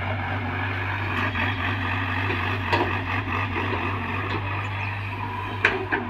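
Hyundai mini excavator's diesel engine running steadily while it digs, with two sharp knocks, about halfway through and again near the end.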